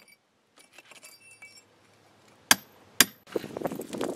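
Light metallic clinks, then two sharp blows of a club hammer on a cold chisel cutting into concrete block, about half a second apart. Then a rough rustling and crunching as rubble and pink fiberglass insulation are pulled out of the hole.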